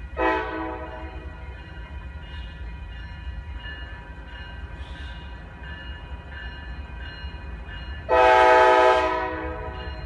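Freight train locomotive sounding its air horn at a railroad crossing: a short blast right at the start that dies away within a second, then a louder blast about eight seconds in lasting about a second, over the steady low rumble of the passing train.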